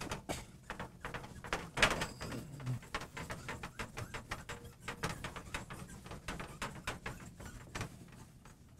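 Cloth wiping a glass lightboard: quick back-and-forth rubbing strokes, one louder about two seconds in, fading out near the end.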